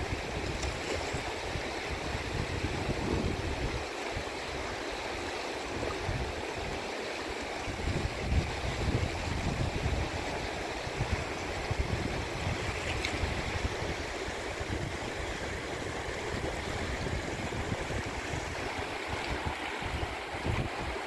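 Running water rushing steadily, with uneven gusts of wind rumbling on the microphone.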